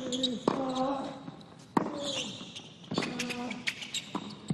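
A tennis rally: rackets strike the ball about once a second, each stroke followed by a short grunt from the hitting player.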